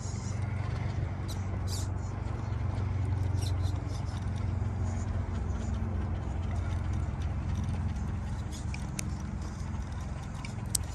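Scale RC rock crawler's electric motor and geared drivetrain running at low speed as it climbs a rock face, a steady low hum, with light clicks and scrapes of the tyres on rock and one sharper click near the end.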